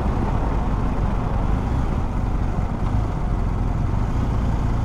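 BMW R1250GS's 1254 cc boxer-twin engine running steadily at low road speed, heard from the rider's seat.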